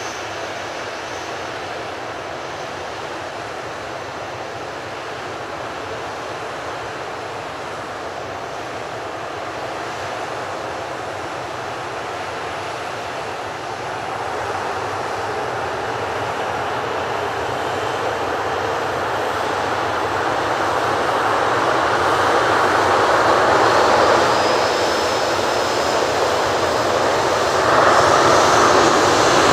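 Jet engines of a Boeing 737-800 airliner (CFM56 turbofans) running as it taxis and turns on the ground. The steady engine noise grows louder, with a step up about halfway and again near the end, and a faint high whine over it in the second half.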